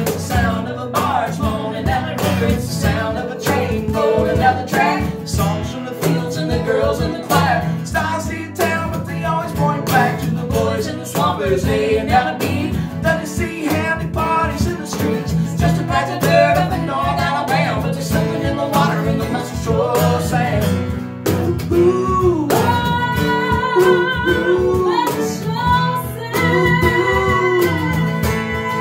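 Acoustic band music: an acoustic guitar strummed over a cajon beat, with voices singing. A little over two-thirds of the way in, the singers hold long notes with a slight waver.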